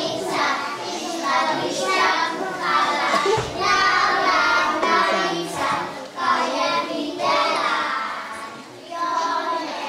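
A group of young children singing a song together, line after line, with short breaks between phrases.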